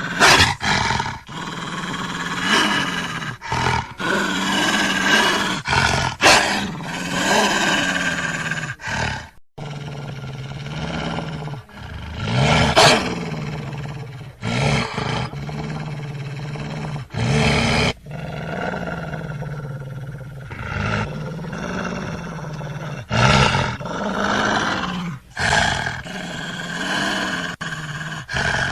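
Wolf growling: a steady, low growl that goes on and on, rising into louder, harsher peaks every few seconds, with a short break about nine and a half seconds in.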